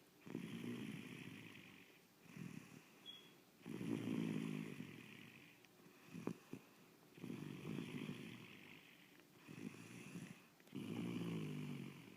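Snoring: four long snores about three and a half seconds apart, with shorter, quieter breaths between them.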